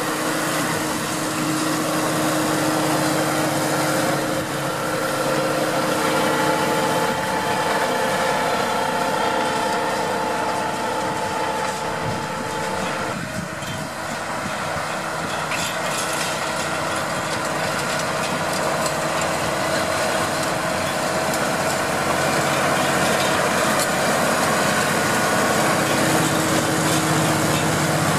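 Deutz-Fahr 6155 tractor's diesel engine running steadily under load as it pulls a power harrow through the soil. The sound shifts abruptly about thirteen seconds in.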